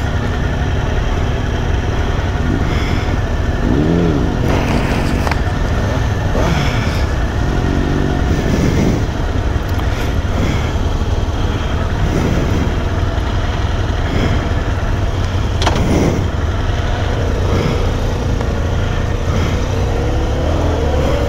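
Motorcycle engines idling steadily, with faint voices in the background and one sharp click about three-quarters of the way through.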